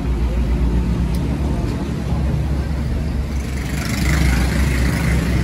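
Steady low mechanical rumble, like a running motor or engine, with a faint hiss joining in about three and a half seconds in.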